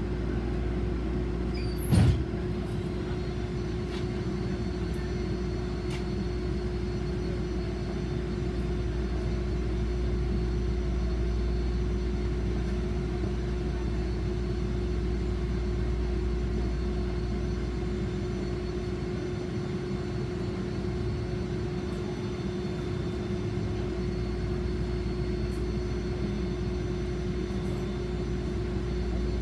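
Steady hum inside a Toyama Chiho Railway streetcar standing still, with a constant mid-pitched tone over a low rumble. There is a single short knock about two seconds in.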